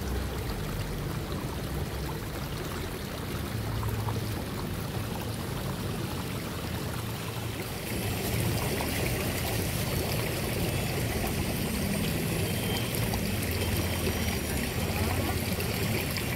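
Steady rushing noise like running water, with no clear events in it; it turns brighter and hissier about eight seconds in.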